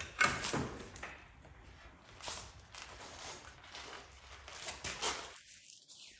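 Irregular metal knocks and scrapes as the rusted rear differential assembly of a 1963 Corvette is lowered off the frame, the loudest knock right at the start.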